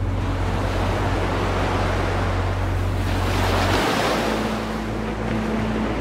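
Small waves washing up onto a sandy beach, the wash of surf swelling about three to four seconds in.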